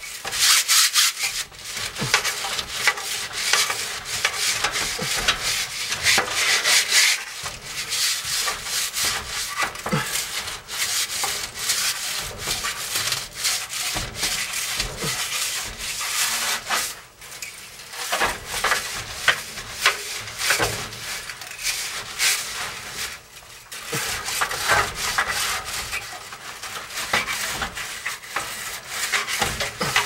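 A brush scrubbing the fins of an air conditioner's A-coil (evaporator coil), a run of quick, rough rubbing strokes with a couple of short pauses.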